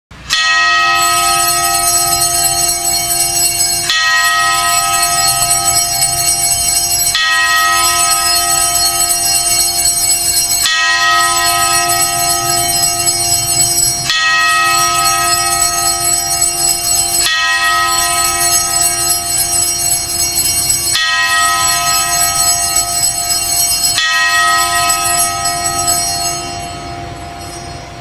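Sacristy bell ringing steadily, its tones starting afresh about every three and a half seconds as it is rung again, then fading away near the end.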